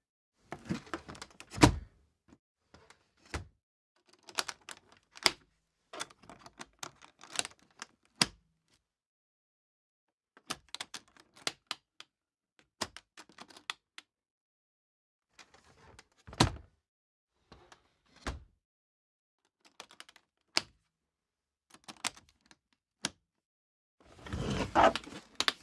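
Aluminum attaché case being handled: latches snapping, the lid knocking shut and opening, with clusters of metallic rattles and clicks. The loudest thuds come about two seconds in and again around the middle, and a busy stretch of rattling comes near the end.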